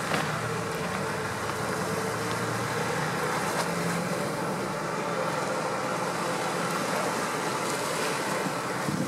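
Amphibious tour bus running steadily through the river, its engine drone mixed with the water churning in its wake.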